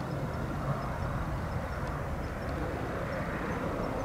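Boeing 767-300 airliner's twin jet engines heard from a distance as it climbs away after takeoff: a steady, even rumble with no distinct tone.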